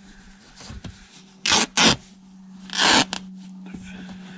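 Old fabric seat cover being pulled and dragged off a car seat: three short, loud scraping rustles, two close together about one and a half seconds in and one near three seconds.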